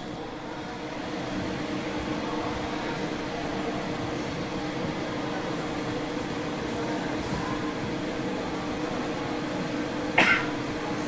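Metal lathe running under power feed on a trapezoidal thread-cutting pass, the carriage traversing the tool along the threaded bar: a steady mechanical hum with two steady tones. About ten seconds in there is one short, sharp sound.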